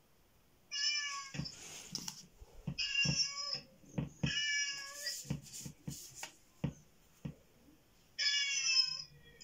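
A cat meowing four times, each call short and slightly wavering, with sharp clicks and knocks in the pauses between them.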